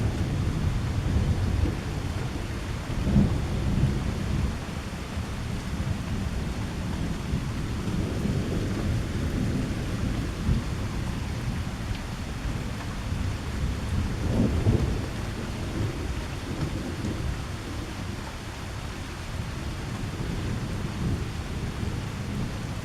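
Thunder rumbling on and off through steady rain, with the strongest rolls about three seconds in and again around fourteen to fifteen seconds in, then fading.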